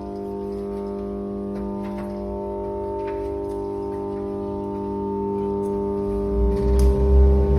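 Steady hum of a power transformer: a stack of unchanging tones spaced about 100 Hz apart, the double-mains-frequency hum of a transformer core. From about six seconds in, a louder low rumble with irregular thumps joins it.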